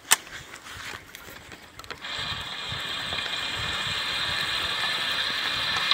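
A sharp click right at the start, then from about two seconds in a spinning fishing reel is wound in: a steady gear whir that carries on, growing slightly louder.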